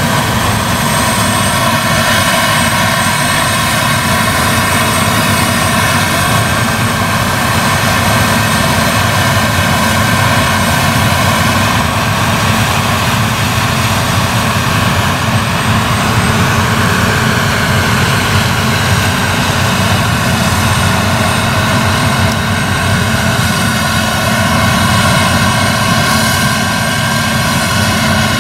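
Claas Lexion 770 TT tracked combine harvester running steadily while threshing rapeseed: a constant low engine drone with a high, steady whine over it.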